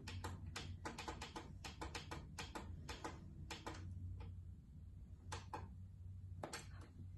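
Buttons on a portable CD boombox clicking as they are pressed again and again, several clicks a second for the first few seconds, then fewer and further apart, over a low steady hum.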